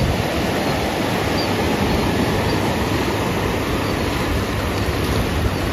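Steady rush of ocean surf.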